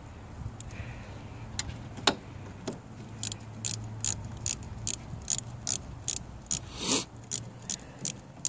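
Ratchet wrench clicking at an even pace, about two and a half clicks a second, while backing out the 8 mm nut on the diesel fuel filter housing lid. A single sharp click comes about two seconds in, before the steady clicking starts.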